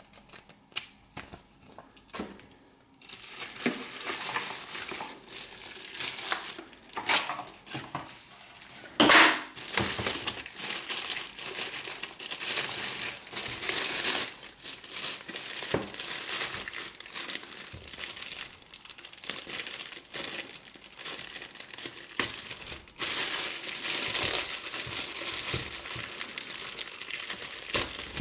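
Thin plastic protective bag crinkling and rustling as it is handled and pulled off a vacuum sealer, with many sharp crackles and one loud rustle about nine seconds in. The first few seconds are quieter, with a few soft ticks of paper pages being turned.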